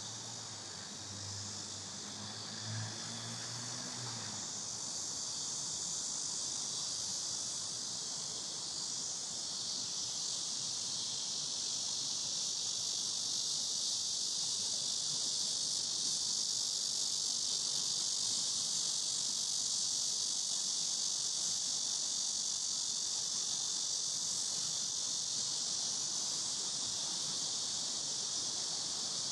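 Chorus of cicadas in the trees: a dense, steady high-pitched buzz that grows a little louder after about ten seconds. A faint low drone fades out about four seconds in.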